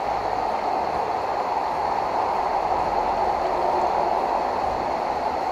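River water rushing steadily over rocks in a fast mountain stream.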